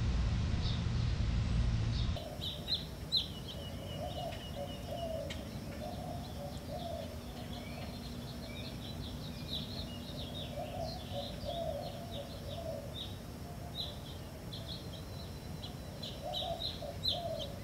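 Birds chirping, with many short high calls over a lower wavering sound. A low hum stops abruptly about two seconds in.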